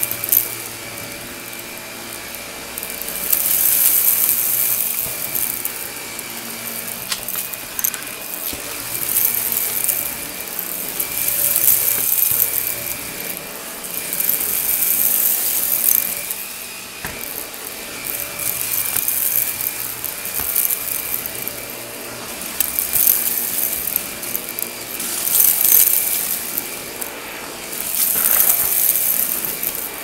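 Vacuum cleaner running with a steady high whine, its rushing hiss swelling and easing every two to four seconds as it is worked back and forth.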